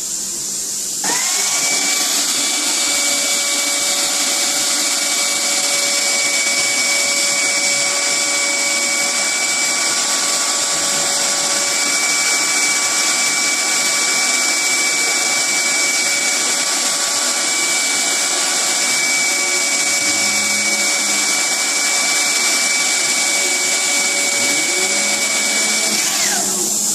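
Handheld hair dryer blowing steadily with a high motor whine, switched on about a second in and off near the end. It is heating the air conditioner's intake air toward 30 °C, its start point.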